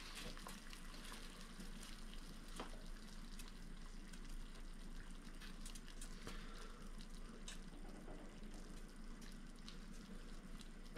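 Pot of water bubbling faintly and steadily on the stove, just turned down from a full boil to a simmer, with scattered small pops.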